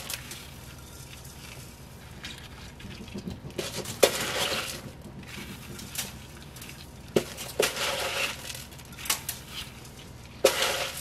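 Coarse sea salt being pressed by a gloved hand onto plums packed in a glazed earthenware jar, salting them for umeboshi. Gritty crunching of salt grains, with several sharp clicks and knocks.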